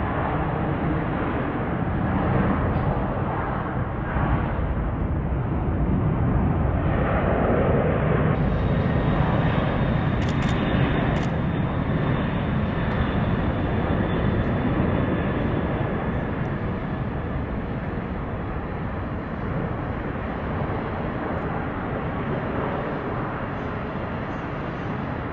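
Jet airliner engines at takeoff power, a loud steady rumble. After a cut about eight seconds in, a Boeing 747 freighter's four engines run at takeoff thrust through its takeoff roll and lift-off, easing a little near the end.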